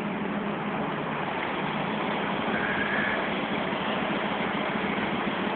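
Car driving through floodwater: the engine runs with a steady hum beneath a constant wash of water noise.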